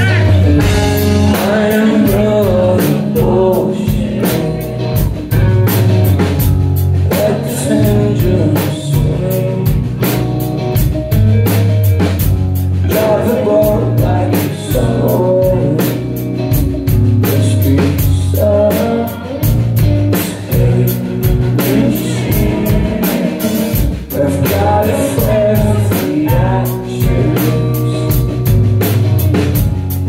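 Rock band playing live: electric guitars, bass guitar and a drum kit keeping a steady beat, with a male lead singer.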